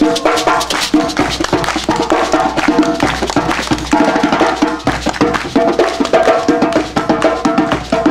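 Live music played by a group: busy hand percussion with dense, quick strikes, over held pitched notes.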